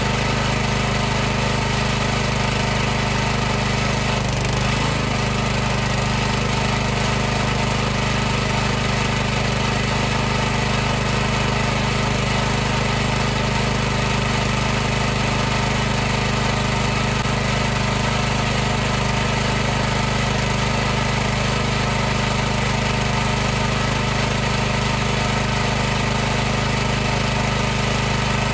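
High-pressure washer running steadily: the pump motor's continuous hum under a broad hiss, with no change in pitch or rhythm.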